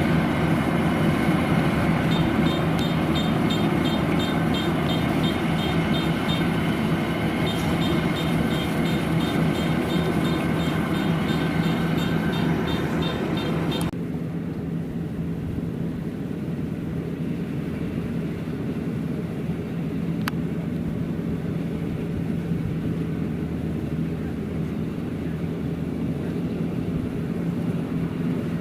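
Kubota DC-93 combine harvester's diesel engine and threshing machinery running steadily under harvest load. A regular high ticking runs over it for several seconds, then the high clatter cuts away sharply about halfway through, leaving the steady engine drone.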